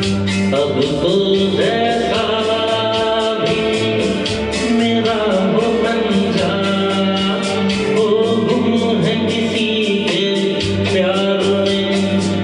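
A voice singing a wavering melody over sustained held chords and a steady percussion beat.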